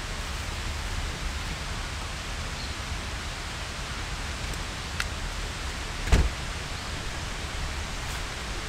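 Steady wind noise rumbling on the microphone outdoors, with a faint click about five seconds in and a single sharp thump about a second later.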